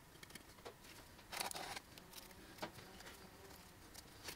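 Faint scratching and light ticks of a pen marking guidelines on paper around a bent sheet-metal piece, with one short scrape about a second and a half in.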